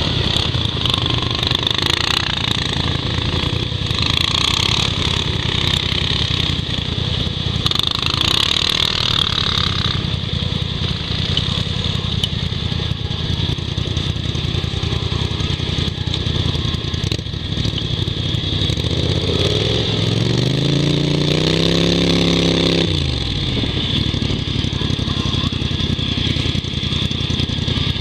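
ATV engines idling with a steady rapid low pulse. About twenty seconds in, a motor winds up in pitch, holds for a few seconds and cuts off abruptly.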